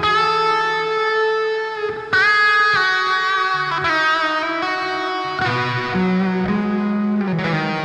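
Electric guitar played through Neural DSP Archetype amp-simulator plug-ins in stereo, in an ambient effected tone: sustained melodic notes, changing every second or two, with one note bent upward a little after two seconds in.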